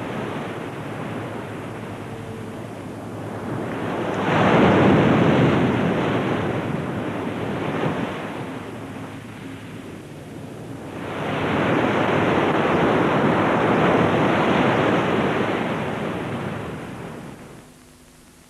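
Rushing sea water and waves washing, swelling loud twice, about four and eleven seconds in, then fading away near the end.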